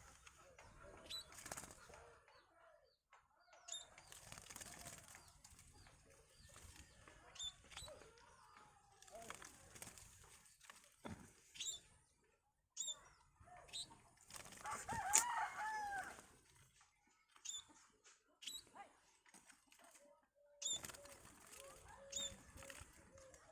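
Small birds chirping faintly: short, high chirps every second or two, with a louder, wavering call about fifteen seconds in.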